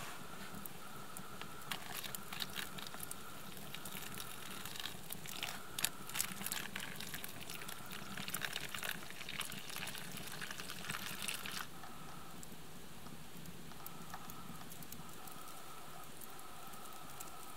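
Hot water poured from a steel canteen cup into a plastic-lined freeze-dried meal pouch, with the pouch crinkling and rustling as it is handled. The handling stops about twelve seconds in.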